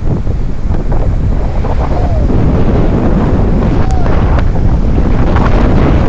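Strong wind buffeting the phone's microphone, over steady surf breaking on a sandy shore.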